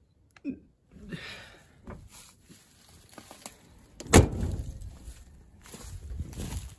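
The cab door of a 1982 Ford F-150 pickup swung shut with a single loud slam about four seconds in, after a few faint clicks and rustles.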